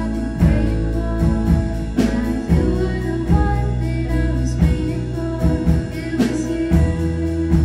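A live band playing an original pop song: a woman's voice sings into a microphone over drums, electric guitar and a steady low bass line, with regular drum hits.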